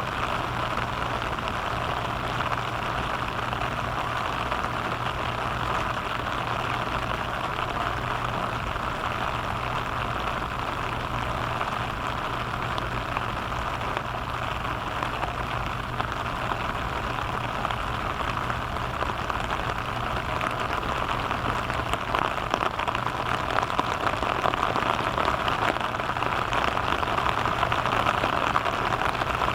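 Steady rain falling and pattering on surfaces, a little heavier in the last third. A low steady hum runs underneath.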